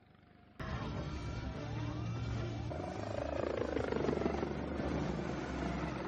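Helicopter going down: loud engine and rotor noise starts abruptly under a second in, with a whine that falls in pitch around the middle.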